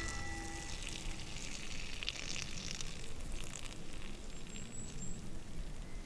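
Hot water poured in a steady stream from a stainless steel pot, splashing onto dry pine needles and forest litter.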